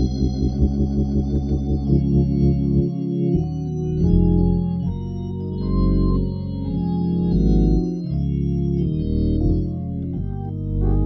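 Viscount Legend drawbar organ playing slow gospel chords over a sustained bass line. The chords pulse rapidly for the first three seconds or so, then are held and change every second or so.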